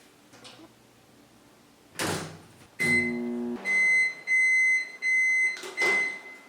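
Microwave oven: a thunk, a brief low hum, then four evenly pitched electronic beeps about half a second each.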